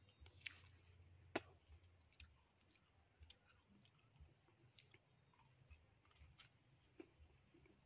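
Near silence with faint clicks from a man chewing and biting a piece of green fruit; one sharper click comes about a second and a half in.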